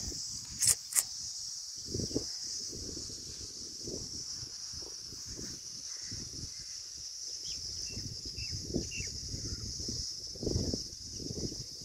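A steady high drone of insects chirring in the field, over irregular low gusts of wind buffeting the microphone. Two sharp clicks come about a second in, and a few faint short bird-like chirps come past the middle.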